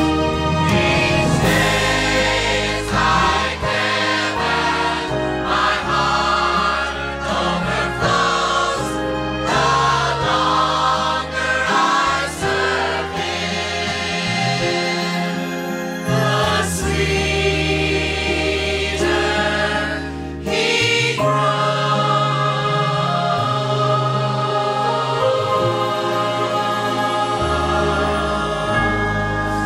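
Mixed church choir of men and women singing a gospel hymn, holding long notes, with low held bass notes beneath the voices.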